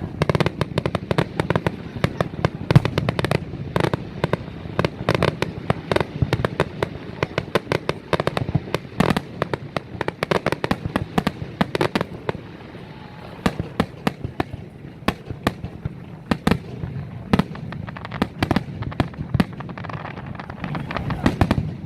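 Fireworks display: a dense, continuous run of sharp bangs and crackling pops, many per second, easing briefly a little past the middle.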